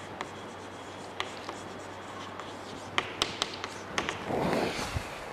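Chalk tapping and scratching on a blackboard as words are written, with a quick run of taps about three seconds in and a longer scraping stroke about four seconds in.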